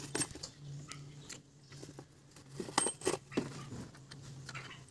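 Several light metallic clicks and clinks, spread irregularly, from metal engine parts and hand tools being handled over the exposed valve gear of a Nissan A12 engine, with a steady low hum underneath.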